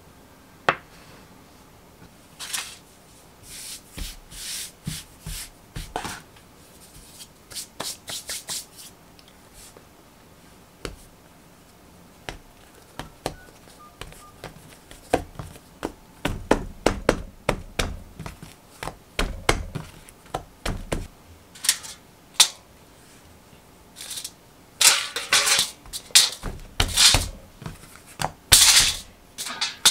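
Hands handling soft bread dough on a floured countertop: a string of short taps, pats and slaps. They are sparse at first and come thicker and sharper in the second half as the dough is rounded and stretched out.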